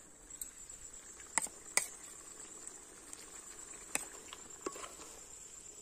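A wooden spoon stirring raw chicken in a steel pot, with about four sharp clicks as it knocks against the pot, over a steady high-pitched insect drone.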